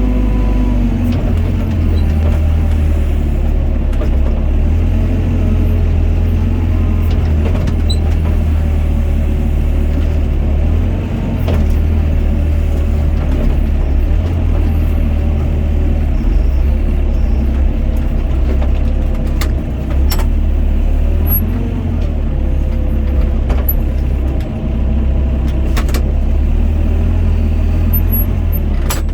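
Doosan DX55 mini excavator's diesel engine running steadily under hydraulic load, its pitch shifting slightly as the machine works, with a few sharp knocks now and then.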